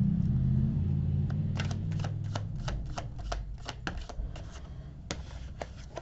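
A deck of tarot cards being shuffled by hand: a quick run of light clicks, about four or five a second, starting about a second in.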